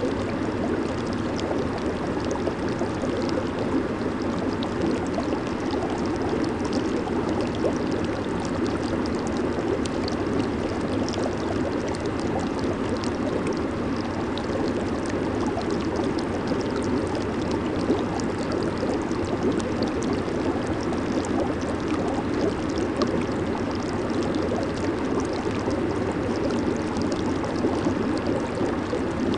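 Hot tub churning with water and air bubbles from its jets, a steady rushing with fine bubbly crackle on top.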